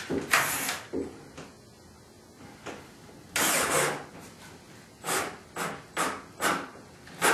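Hand assembly work on wooden loveseat parts: short noisy strokes of wood and hand tools. There is one near the start and a longer one midway, then a run of short strokes about two a second near the end.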